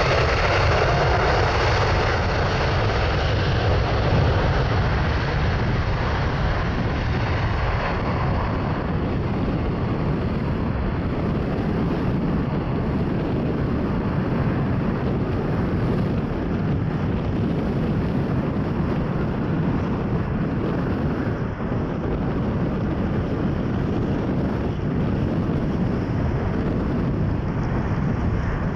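Boeing 787-8 Dreamliner's jet engines at takeoff thrust as the airliner rolls down a wet runway, lifts off and climbs away. The noise is loud and steady. Its hissing upper edge fades after the first several seconds, leaving a deeper, lower-pitched noise.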